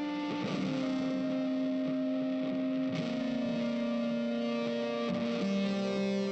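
Background music: long held notes that change pitch every two to three seconds.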